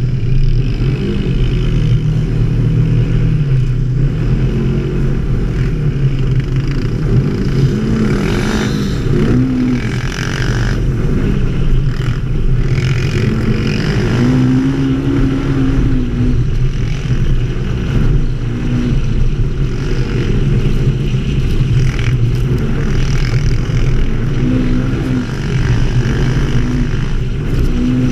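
ATV engine running steadily under load on a sandy trail ride, its pitch rising and falling repeatedly as the throttle is worked.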